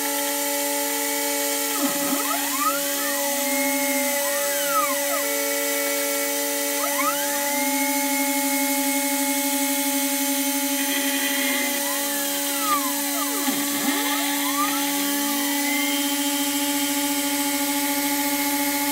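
DIY CNC router milling a curved profile in 6082 T6 aluminium plate with a 4 mm two-flute end mill: a steady spindle whine and cutting noise. The axis motors' tones sweep up and down in pitch again and again as the cutter follows the curves.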